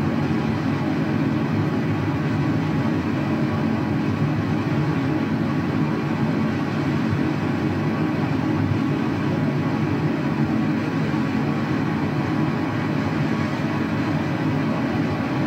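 Steady rushing of a waterfall: an unbroken, even noise, deepest in the low range, that holds at one level throughout.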